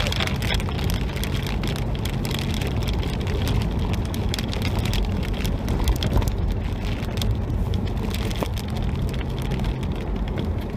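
Heavy rain drumming on a moving car's roof and windshield, heard from inside the cabin as a dense patter of sharp ticks over a steady engine and road rumble.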